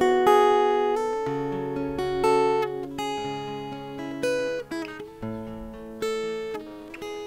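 Soft instrumental background music: plucked chords that ring and fade, a new chord about every second.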